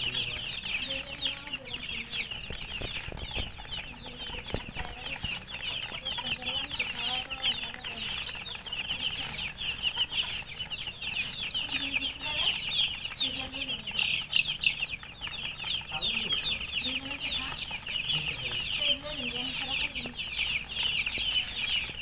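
A crowd of baby chicken chicks peeping without a break, dozens of short, high chirps overlapping.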